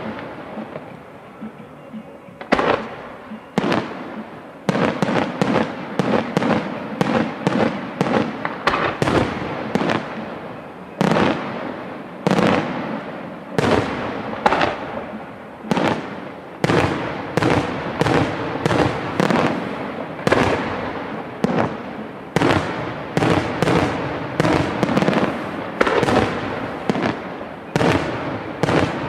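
Aerial firework shells bursting in a rapid barrage: sharp bangs each trailing off in an echo. Sparse for the first couple of seconds, then coming about one to two a second.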